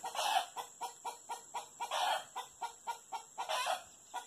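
Chickens clucking in a fast, even rhythm, about four or five clucks a second, with a louder drawn-out cackle breaking in three times.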